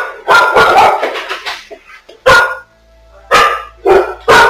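Dogs barking loudly, startled into a sudden fit of alarm barking. A quick run of barks comes first, then single barks about a second apart, then another rapid run starting near the end.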